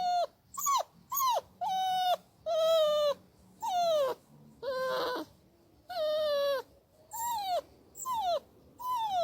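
A dog whining in a run of about ten short, high cries. Most of them slide down in pitch, and there are short silences between them.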